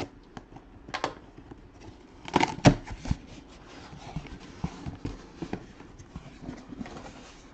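Scattered knocks and taps of cardboard card boxes from a sealed case being handled and set down on a table, with the loudest cluster of knocks about two and a half seconds in.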